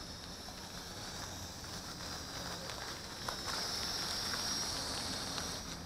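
Mould King 33043 Super F micro quadcopter's small motors and propellers whining in flight, a high steady whine that wavers slightly in pitch and gets louder about halfway through as the drone comes closer.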